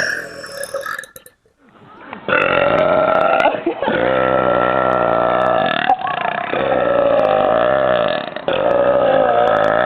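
A woman's very loud burp tails off at the start. After a brief silence comes a long run of deep, loud burps at a fairly steady pitch, lasting about seven seconds with a few short breaks. They are produced by deliberately swallowing air.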